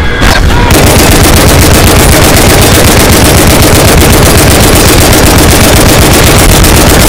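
Loud, unbroken rapid gunfire from many rifles and machine guns firing at once, setting in within the first second. The staggered shots of many guns blend into one continuous chain that sounds fully automatic.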